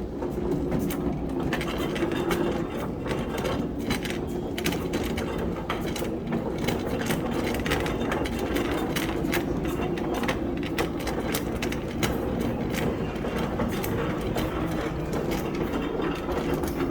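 Rapid, irregular mechanical clicking and rattling over a steady low hum.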